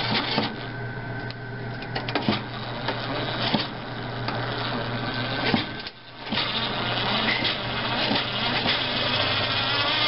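Handheld electric screwdriver whirring as it backs out the screws holding a microwave in its cabinet, with clicks of the bit on the screws. The motor drops out briefly about six seconds in, then runs again.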